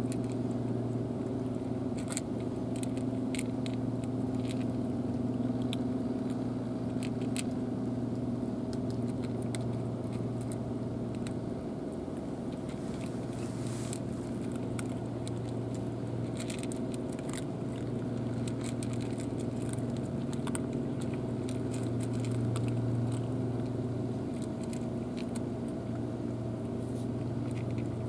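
Cats crunching dry kibble: scattered small crunches and clicks throughout, over a steady low mechanical hum.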